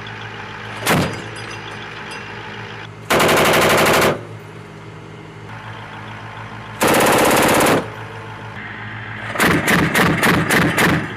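M242 Bushmaster 25 mm chain gun firing from an M2 Bradley: a single shot about a second in, two bursts of about a second each, then a string of quick separate shots near the end, over a steady low hum.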